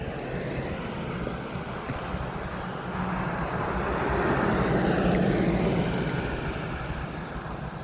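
A passing vehicle's engine noise: a steady rumble that swells to its loudest about five seconds in and then fades.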